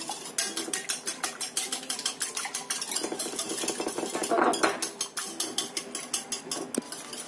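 Eggs and sugar being beaten by hand in a bowl, the utensil clicking quickly and steadily against the bowl's side, a little louder about four and a half seconds in.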